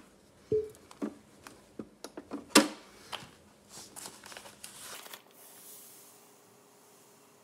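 A glass measuring cup being set down and handled on a digital kitchen scale: a few sharp knocks, one with a brief glassy ring, the loudest about two and a half seconds in. These are followed by a run of small clicks and light crinkling that stops about five seconds in.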